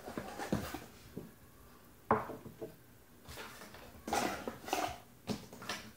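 A small cardboard gift box being opened and its packaging handled: a few bursts of rustling and scraping, with a sharp knock about two seconds in.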